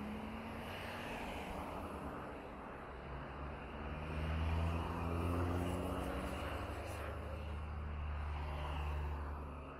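Street traffic: a motor vehicle's engine running close by, rising in pitch as it speeds up, loudest partway through and fading near the end.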